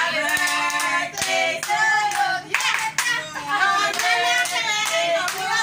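A small group of women clapping their hands along while singing together, the claps sharp and frequent over the voices.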